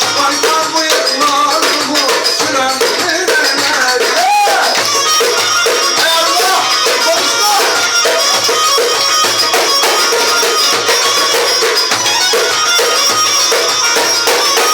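Çiftetelli, a Turkish dance music, with a steady percussion beat and a melody that slides in pitch.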